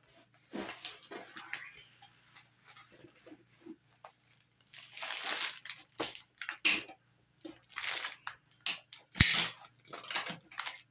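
Paper and plastic packaging crinkling and rustling in irregular bursts as a cardboard shipping tube is unwrapped and its plastic-bagged contents are slid out, with one sharp knock near the end.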